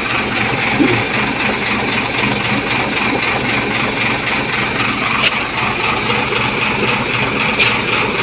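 Diesel truck engine idling steadily, with a single sharp click about five seconds in.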